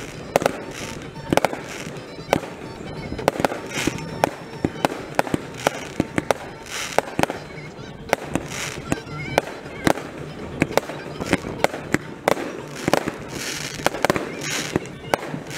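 Aerial fireworks shells bursting in rapid, irregular succession: dozens of sharp bangs, often several a second, with bursts of crackling hiss between them.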